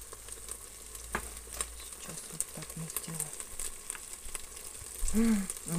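Chopped onions frying in a multicooker bowl with ketchup and mustard: a steady sizzle with a few sharp clicks of a plastic spoon stirring against the bowl.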